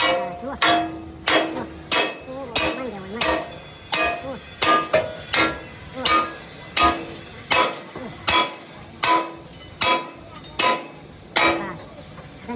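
Hammer striking steel in steady, evenly spaced blows, about three every two seconds, each leaving a short metallic ring.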